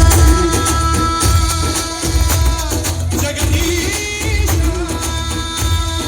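Loud music played over a sound system, with a pounding bass beat under a held, wavering melody line.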